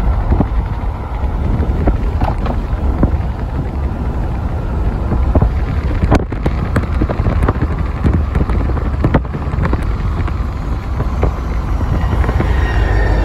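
Road rumble and wind buffeting the microphone from inside a moving car, steady and heavy in the low end, with scattered small knocks. Near the end a faint high squeal comes in as a BNSF freight locomotive comes close.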